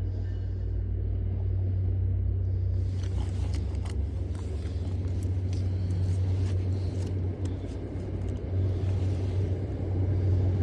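A steady low rumble, with light clicks and rustles from about three seconds in.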